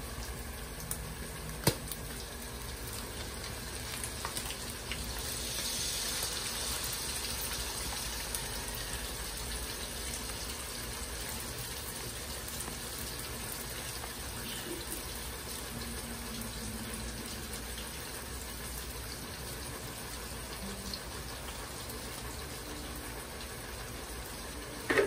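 Spaghetti sauce pouring from a pouch into a hot wok of frying sliced hot dogs and ham, sizzling steadily; the hiss swells about five seconds in and then settles into a steady simmer. A sharp tap sounds about two seconds in.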